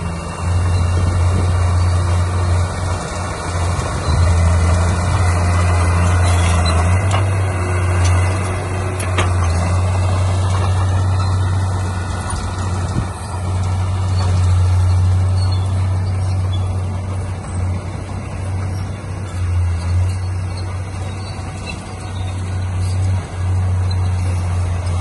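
Heavy diesel construction machinery running steadily with a strong low engine drone, and a brief squeal that rises and falls near the middle.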